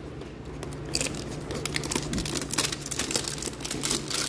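A cardboard trading-card hanger box being torn open by hand: the paperboard flap crackles and tears in many short snaps, starting about a second in.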